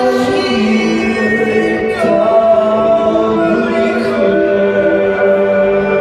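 Music with singing: layered voices holding long notes over a sustained accompaniment, the chord changing about every two seconds.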